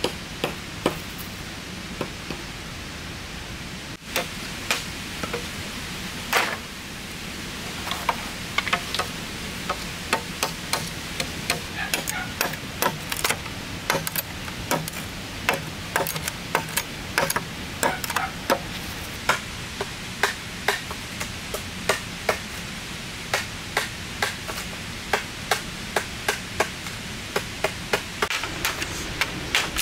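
Repeated sharp knocks of a hand tool striking, sparse at first and then coming about two a second from about a quarter of the way in, over a steady background hiss.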